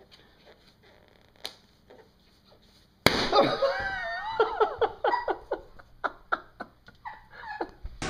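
A long twisting balloon bursts with a sudden loud pop about three seconds in, after a few quiet seconds of faint ticks from a cat's claws and teeth on it. A person then shrieks and breaks into bursts of laughter.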